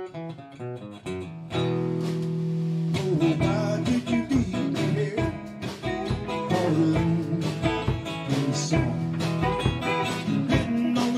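A live rock band starts a song. A guitar picks a short run of single notes, then about one and a half seconds in the full band comes in together on a held chord. Electric bass, two guitars and a drum kit then settle into a steady groove.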